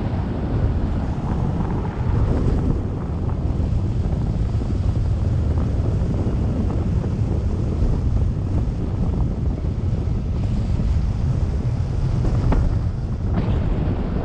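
Airflow of paraglider flight rushing steadily over the camera's microphone as a deep wind rumble.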